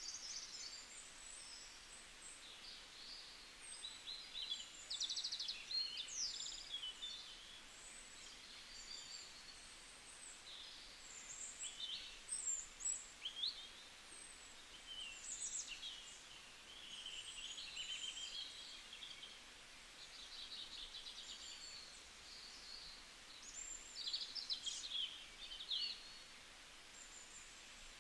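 Small birds chirping and twittering in the background: many short high calls and quick trills, some rising or falling in pitch, coming irregularly over a faint steady hiss.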